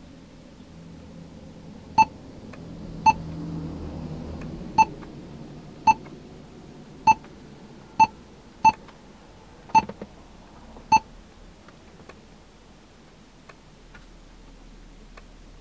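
Key-press beeps from a Joying 10.1-inch Android car head unit as its touchscreen is tapped: nine short, high beeps at uneven intervals, over a faint low rumble.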